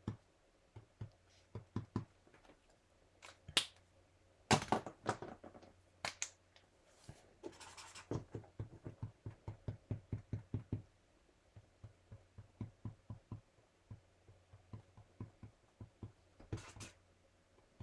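Acrylic paint pen tip tapping on vinyl sticker paper, dabbing dots of paint in runs of light, quick taps, about four a second at the busiest, with a few louder clicks between.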